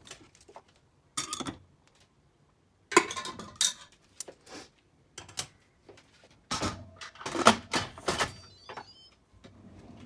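Kitchenware being handled: a glass food container and utensils clatter and knock in several short bursts as rice is moved back into a pressure cooker. The loudest clatters come about three seconds in and again between seven and eight seconds.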